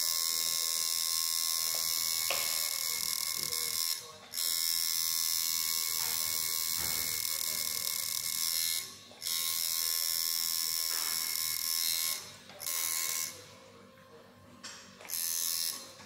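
Electric tattoo machine buzzing steadily as the needle works the skin. It stops for a moment about four, nine and twelve seconds in, then runs only once more briefly near the end.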